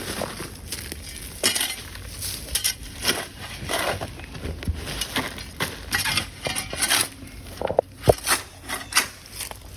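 Irregular clinking, scraping and knocking of hard objects against each other, a few sharp strikes a second, with the loudest knocks near the end.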